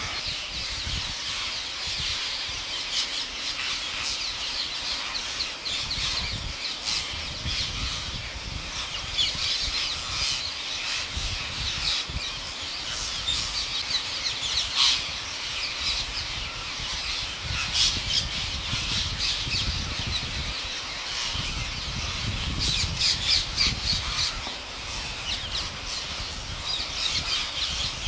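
Green parrot squawking and chattering in a stream of short, high, harsh calls, with louder clusters of calls about halfway through and again later on, over intermittent low rumbles.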